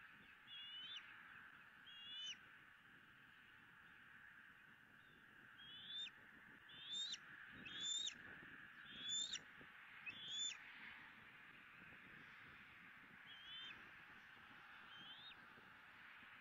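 Bald eagle calling: a series of short, high-pitched whistled notes, each bending up and down in pitch. Two come early, then a louder run of five about a second apart in the middle, then three fainter ones near the end, over a steady background hiss.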